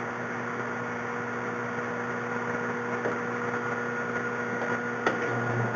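Metal lathe running steadily with a hum of several steady tones, its reamer backed off and not yet cutting. A faint click about five seconds in.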